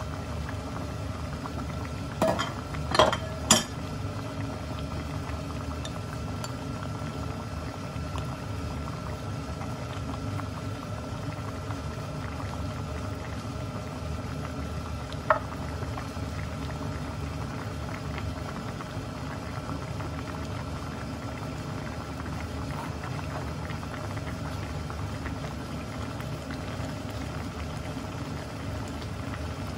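Braised mackerel broth boiling steadily in a pot on a gas stove, the bubbling that marks the simmer while the fish soaks up the seasoning. A few sharp knocks come about two to four seconds in, and one more about halfway through.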